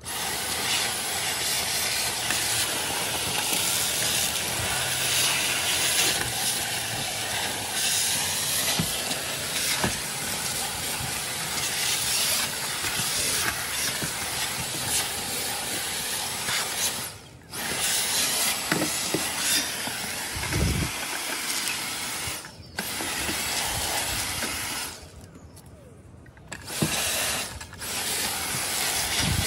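Dyson cordless stick vacuum running with a steady whooshing hiss as it is worked over a leather car seat, cutting out briefly three times in the second half.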